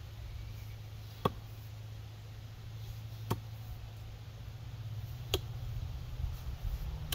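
Council Tool FE-6 six-pound axe with a 4140 steel head chopping into a dry-ish red maple standing block: three sharp strikes about two seconds apart. A steady low hum runs underneath.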